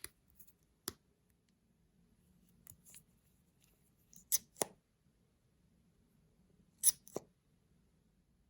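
Short, sharp clicks, mostly in pairs about a third of a second apart: one about a second in, then three pairs spaced over the following seconds.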